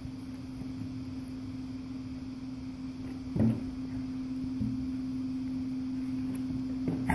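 An empty plastic coffee canister being knocked about by a dog, with one sharp knock about three and a half seconds in, over a steady low hum.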